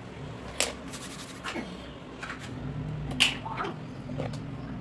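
Hands rolling and handling play-dough on a sheet of paper: a few light, sharp taps and soft rustles, the loudest a little after three seconds in, over a low steady hum.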